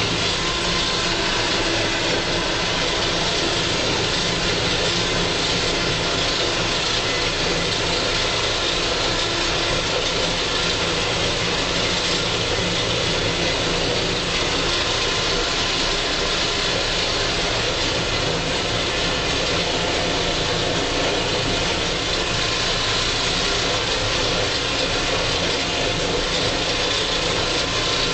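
Valtra 6800 tractor's diesel engine running steadily under load, driving a 3-metre pasture topper through tall grass, heard from the cab. A constant mix of engine drone and mower noise with no change in pitch or level.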